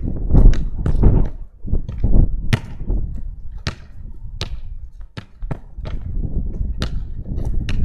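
A football being kicked and juggled, knocking off a wall and bouncing on asphalt: many sharp knocks at irregular intervals, with heavier low thuds in the first couple of seconds.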